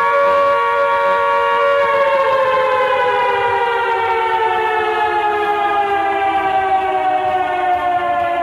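Carter air raid siren sounding a steady two-tone wail, then about two seconds in starting to wind down, its pitch falling slowly and steadily.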